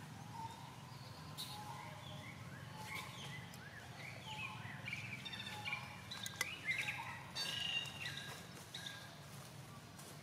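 Many short, high chirping and squealing calls overlapping, getting busier and louder in the second half, with a few sharp clicks in the middle, over a steady low hum.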